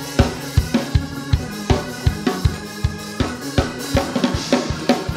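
Church band's drum kit playing a fast, steady praise-break beat of bass drum and snare, about three beats a second, over held low notes.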